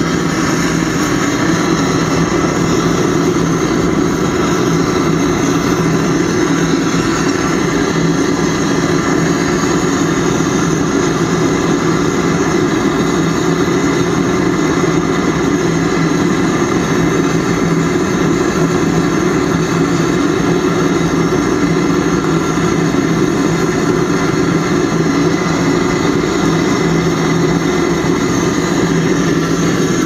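Homemade gas-fired foundry furnace running at full heat while melting aluminium: a loud, unchanging burner roar with a steady low hum in it.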